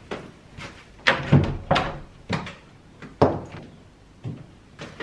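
Cupboard doors and drawers being opened and shut: a string of separate knocks and bangs, the loudest about a second in and again a little after three seconds.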